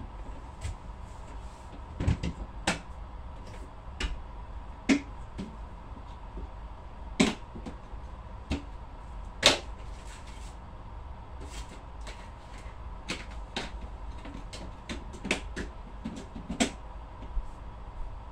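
Scattered light knocks and clicks at irregular intervals, about a dozen in all, the loudest about halfway through.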